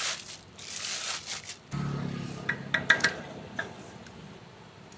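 A plastic bag crinkles and scrapes as red yeast rice paste is worked out of it. Then comes a dull splash as the paste drops into a pot of water, followed by a few sharp clinks ringing off the stainless steel pot.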